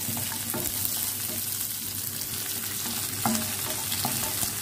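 Potatoes, carrots, peas and onion sizzling in butter in a frying pan: a steady hiss, with a few sharp knocks and scrapes of a utensil against the pan as the vegetables are stirred, the clearest about three seconds in.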